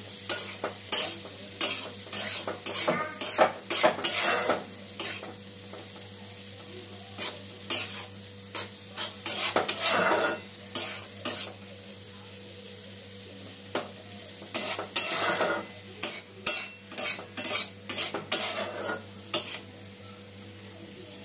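A metal spoon scraping the inside of a small wok as it stirs dry moong dal kachori stuffing over a low gas flame, in runs of quick strokes broken by short pauses. A steady low hum runs underneath.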